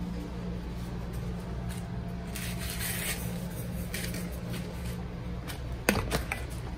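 Steady low hum of a room fan or air-conditioning unit, with rustling and handling noise as the bottle is carried along, and a sharp click about six seconds in as a door latch is worked.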